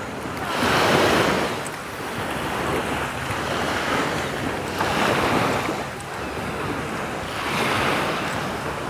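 Sea waves washing onto a beach, swelling and easing every few seconds, with wind buffeting the microphone.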